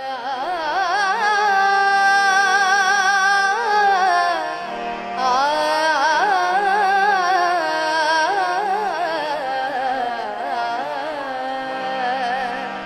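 A woman singing a wordless, ornamented opening phrase of a Dogri folk song, with a harmonium holding sustained notes underneath.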